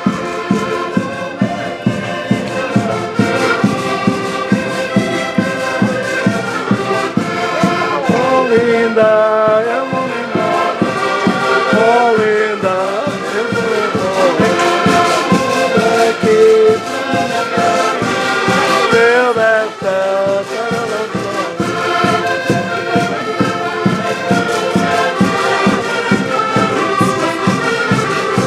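Several accordions playing a lively traditional tune together over a steady bass-and-chord beat, with a voice singing along through the middle.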